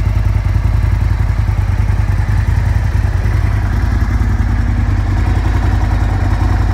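A 2004 Aprilia RSV Mille R Factory's 997cc V-twin idling steadily at about 1,300 rpm through an Arrow carbon-fibre slip-on exhaust. It runs loud and even, with a low rumble.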